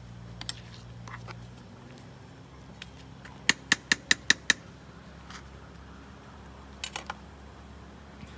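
Metal ladle tapped six times in quick succession against the rim of a stainless steel cooking pot, about five taps a second, each with a short metallic ring, then a few lighter clinks. A faint steady low hum runs underneath.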